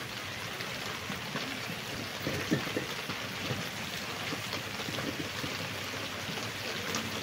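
Steady rain-like hiss, with a few faint soft taps as chopped onion is dropped from a plastic bowl into a steel mixing bowl, about a second in and again a little later.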